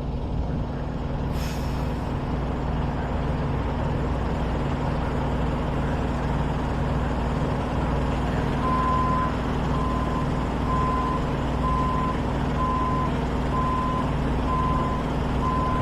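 Heavy diesel engine running steadily, with a short hiss about a second and a half in. About nine seconds in, a backup alarm starts beeping about once a second as a machine reverses.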